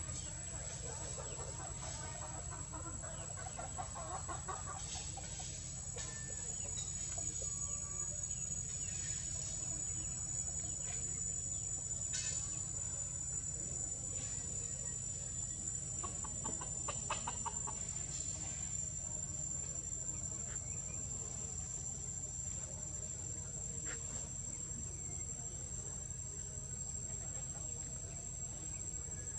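Forest ambience: a steady high-pitched insect drone, with two short bouts of rapid pulsed animal calls, one in the first few seconds and one around sixteen to eighteen seconds in.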